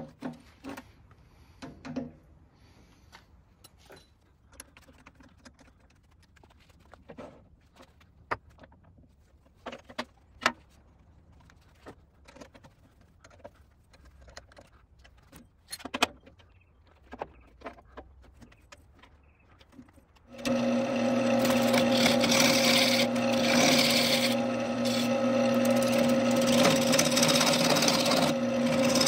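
Light metal clicks and knocks as a steel scroll chuck and a bark-covered redbud blank are fitted on a wood lathe. About two-thirds of the way in, the lathe starts suddenly and a gouge cuts into the spinning green redbud branch: a loud, steady scraping cut over an even motor hum.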